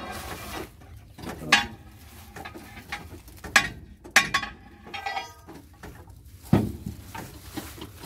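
Several sharp metal clanks, each ringing briefly, as men work levers and bars on a Malkit combine harvester to free its jammed threshing drum.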